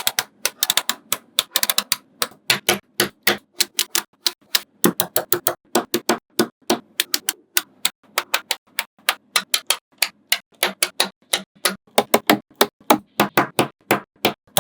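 Magnetic balls clicking as they snap together: an irregular run of sharp clicks, several a second, sometimes in quick clusters.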